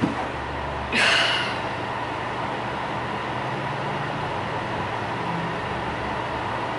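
Steady background noise: an even hiss over a low hum. About a second in comes one brief rushing sound that fades within half a second.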